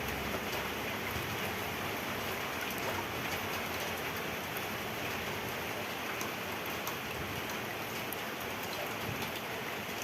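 Steady splashing and running water, with faint scattered drips and small splashes throughout.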